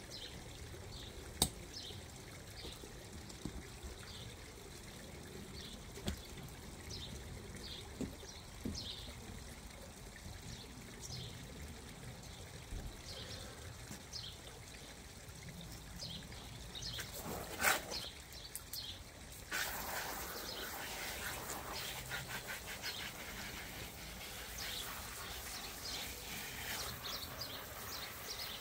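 Garden hose water trickling, then about two-thirds of the way in a steady spray starts and splashes onto the vinyl cover of an inflatable hot tub.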